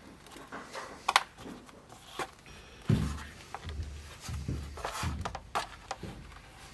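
Hand-stitching a leather scabbard: scattered small clicks and rustles of thread, needle and leather being handled, with a sharp click about a second in and a few dull thumps around the middle.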